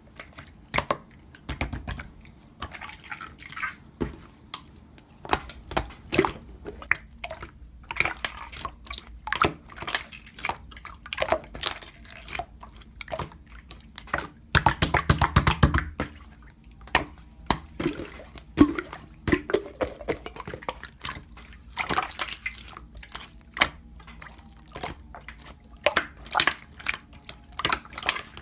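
Irregular wet, sticky clicks and squishes, many close together in a dense run about halfway through.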